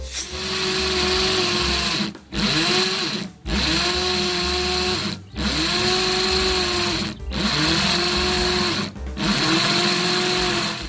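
Electric power drill run in six bursts of one to two seconds each, the motor spinning up at the start of each burst and winding down at the end.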